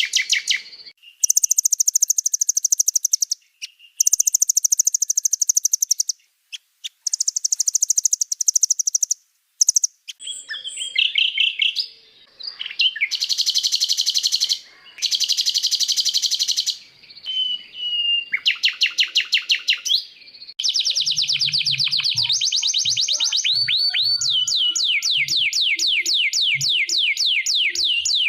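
Recorded songbird song played as a training ('masteran') compilation: bursts of rapid, evenly repeated high-pitched notes and trills, changing pattern from burst to burst. Near the end it settles into one long, unbroken fast trill.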